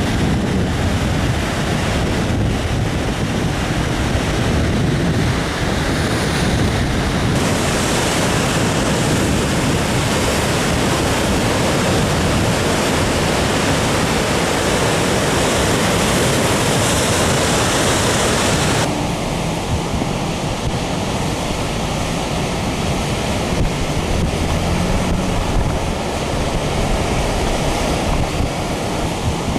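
Heavy surf on the Sea of Japan, high waves left by a passing typhoon crashing and washing ashore, with wind buffeting the microphone. The sound shifts abruptly about seven seconds in and again past the middle.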